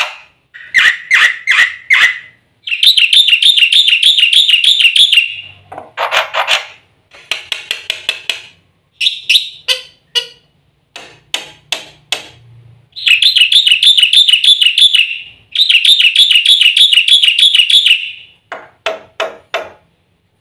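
Black-winged starling (jalak putih) singing a loud, varied song. Quick series of sharp chirps and clicks alternate with three long, fast trilled warbles of two to three seconds each: one about three seconds in, then two back to back from about thirteen seconds.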